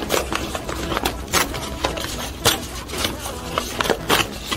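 Tear-away embroidery stabilizer being torn off around a stitched fabric piece: an irregular run of short papery rips and crackles mixed with fabric rustling.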